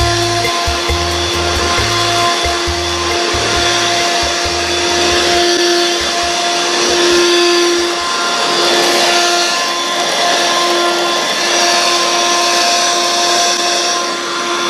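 Dirt Devil stick vacuum running steadily over carpet: an even, high-pitched motor whine over the rush of suction air.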